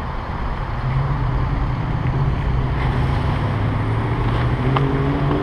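Street traffic: a motor vehicle's engine hum, steady and drifting slightly lower in pitch before rising again near the end, over wind noise on the microphone.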